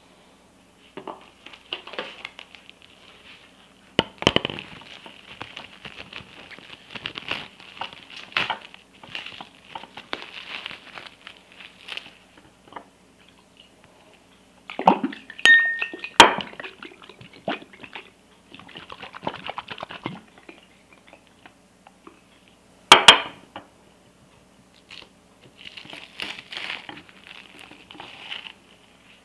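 A glass bottle being handled on a hard tabletop: several sharp glass clinks and knocks, three of them loud, with crinkling plastic as a sheet of plastic is pressed over the bottle's mouth near the end.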